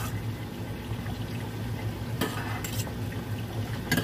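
Food being stirred in a mixing bowl with a spatula, the utensil scraping and knocking against the bowl a few times over a steady low hum.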